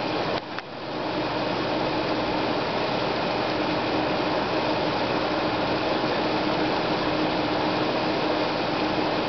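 A 4 HP paddlewheel pond aerator with ten impellers running, its wheels churning and spraying the water in a steady rush with a constant hum underneath. The sound dips briefly about half a second in, then holds steady.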